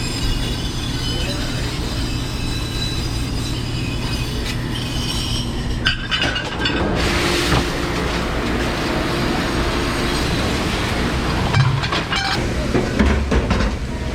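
Steady hum and hiss of commercial kitchen equipment, with dishes and metal knocking and clattering now and then, more often near the end.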